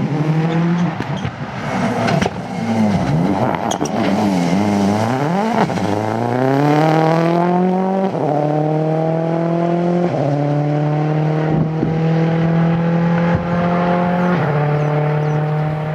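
Rally car engine revving up and down through a slow section, then accelerating hard, its pitch rising steadily, with three upshifts in the second half.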